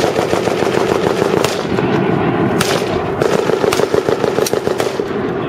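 Machine-gun fire: rapid, continuous full-auto shots, with a few louder, sharper single shots standing out about four times.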